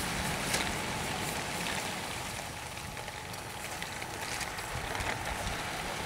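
Campfire cooking: a steady hiss of food sizzling over the fire, with faint scattered crackles.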